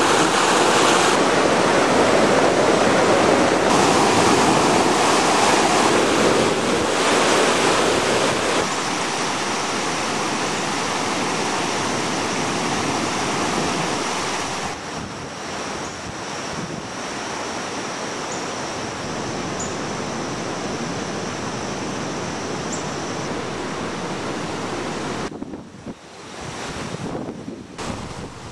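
Rushing floodwater, a steady roar of churning water mixed with wind noise on the microphone. Its loudness drops in steps about halfway through and again near the end.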